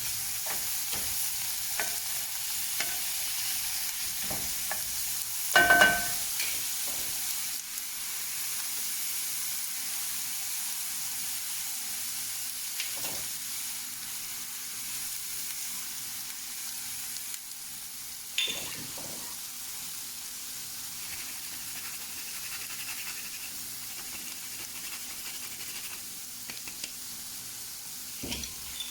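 Swiss chard sautéing in olive oil in a pan: a steady sizzle with small scraping and tapping from a stirring utensil. About six seconds in, metal strikes the pan with a short ringing clink, the loudest sound here, and a softer knock follows later on.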